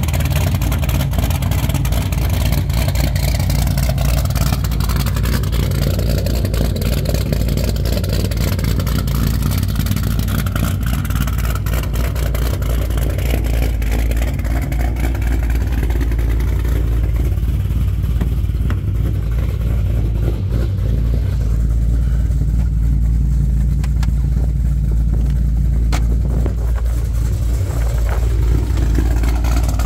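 Pontiac G8 GXP's cammed LS3 V8 idling through a straight-piped exhaust, a steady, deep, choppy idle from the aggressive camshaft.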